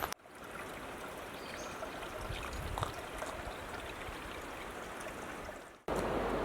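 A forest stream running steadily over rocks. Near the end the sound cuts abruptly to a louder, denser rush of water.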